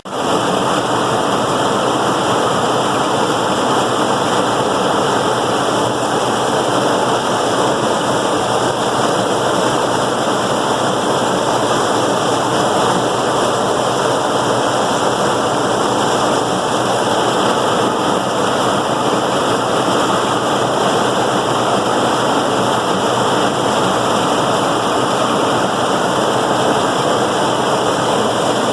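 John Deere 6400 diesel tractor running steadily under load, driving a New Idea PTO corn picker that is picking ear corn. The sound is a loud, even mechanical noise with no letup.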